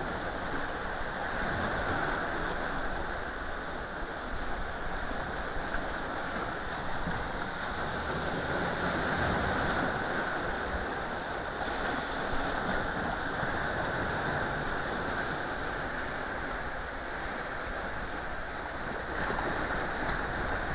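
Sea surf: waves breaking and washing up a sandy shore in a steady rush that swells louder now and then as bigger waves come in.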